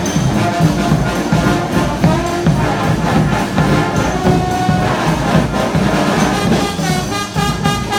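Street brass band playing, with horns over drums.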